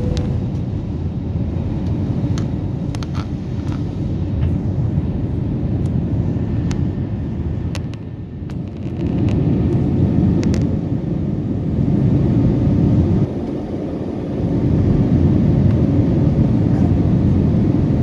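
Jet airliner's engines at takeoff power, heard inside the cabin as a loud, steady low rumble during the climb-out. The rumble swells louder about halfway through, with a few faint clicks.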